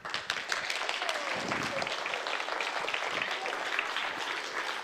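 Congregation applauding: many hands clapping in a steady, even patter that eases off near the end.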